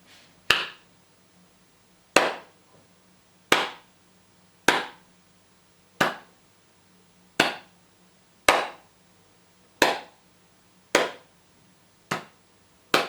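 About eleven single sharp hand claps, one every second or so, made as a test signal to check the delay of the recorder's Wi-Fi link to the phone app.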